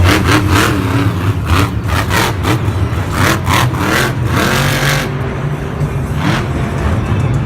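Monster truck's supercharged V8 engine revving hard in repeated bursts, its pitch rising and falling over a steady low drone. The revving eases about five seconds in, then flares once more.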